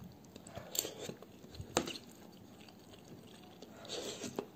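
Someone eating from a bowl with a metal spoon: a few sharp clicks and scrapes of the spoon in the bowl of rice, with quiet chewing between them.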